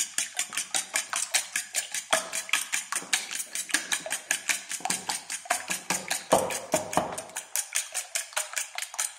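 Eggs being beaten with a fork in a stainless steel bowl: fast, even clicking of the fork against the metal, about six strokes a second.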